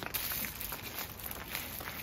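Thin plastic bag rustling and crinkling as takeaway food is unwrapped by hand, with faint scattered crackles over a steady hiss.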